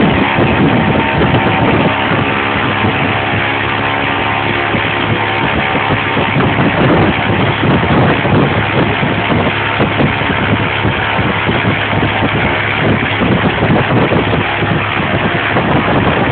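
Lycoming aircraft engine of a wind machine running steadily at speed, a constant engine note under the loud rush of its propeller's blast.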